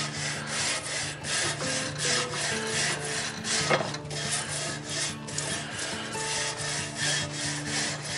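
Wire grill brush scrubbing back and forth over the cast iron grate of a Sportsman's Grill, in repeated scraping strokes a few times a second.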